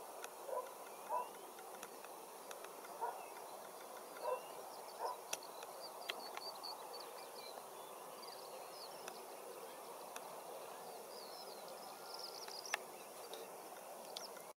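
Wild birds calling over a steady faint hiss of open-country background noise: short low calls repeat about every half second to second in the first few seconds, then thin high chirps and twitters come in from about five seconds in.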